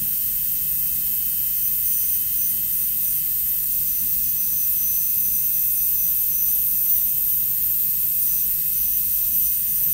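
High-speed dental handpiece running with its water spray, a steady high-pitched whine over hiss, while cutting at the proximal area of a maxillary first molar's MOD amalgam preparation.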